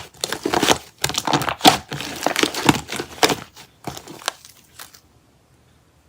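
Slime being squeezed and pressed by hand, a dense run of crackles and pops that thins out about four seconds in and stops.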